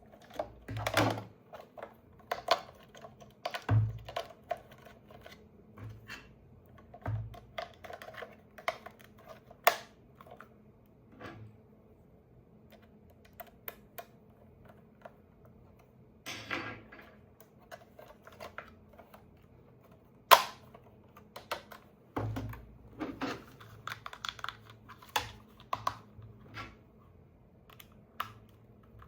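Hands handling a toy and its packaging: irregular clicks, knocks and short rustles of plastic and cardboard, with one sharper knock about two-thirds of the way through.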